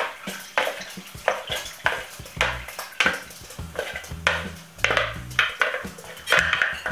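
A wooden spoon is pushing and stirring fermenting banana pulp through a plastic funnel. It gives a run of knocks and scrapes against the funnel, about one every half second or so.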